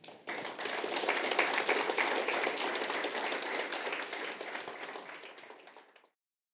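Audience applauding: many hands clapping in a dense patter that starts just after the start, fades, and is cut off about six seconds in.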